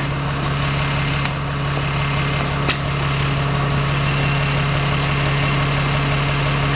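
Bus engine idling steadily at a stop, a constant low hum, with a couple of short knocks in the first few seconds.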